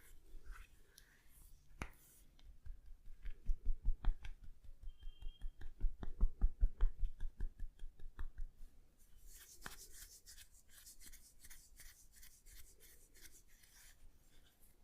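Fast rhythmic tapping of hands on the head in an Indian head massage: dull thumps, several a second, for about five seconds. A hissing rub of hands through hair follows, hair cracking.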